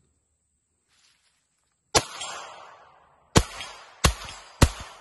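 Four .22 LR rimfire shots from an AR-15 rifle fitted with a CMMG .22LR conversion kit: one about two seconds in, then three more in quick succession near the end, each trailing off in a short echo.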